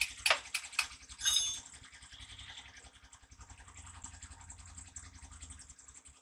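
Quick, even metal tapping at a truck wheel hub, about four taps a second, that stops about a second in. A brief metallic ring follows, then only faint scraping and ticking.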